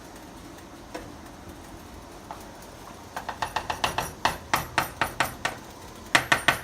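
Kitchen utensil knocking and clicking in quick succession, about four sharp knocks a second starting about three seconds in, with two louder knocks near the end.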